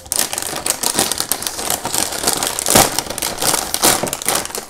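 A foil-lined plastic snack bag of corn puffs crinkling and crackling as it is pulled and torn open by hand, loudest about three seconds in.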